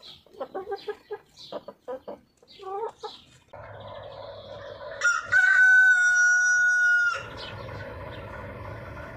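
Hens clucking in short calls for about three seconds, then the steady rumble of a passing diesel passenger train. About five seconds in, the train's horn sounds one long steady note for about two seconds, the loudest thing here, and cuts off sharply.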